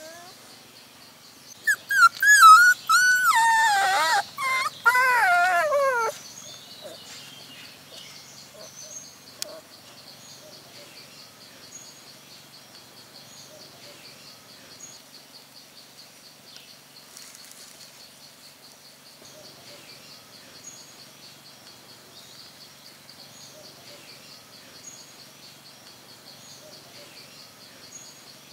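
Puppy whining and whimpering: a run of high, wavering cries lasting about four seconds. After that, only faint outdoor background with a high chirp repeating about once a second over a steady high hum.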